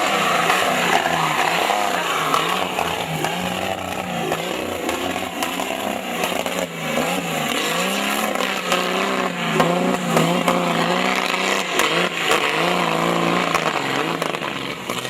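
A 4x4 off-road vehicle's engine revving up and down again and again, its pitch rising and falling every second or so.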